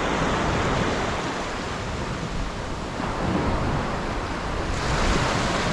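Small waves breaking and washing up a sandy beach, with wind rumbling on the microphone; the wash of the surf swells near the end.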